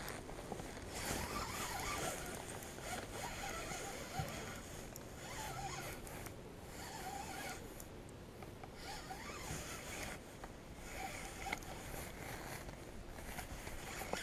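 Scratchy, zipper-like rustling that swells and fades, with a few faint clicks.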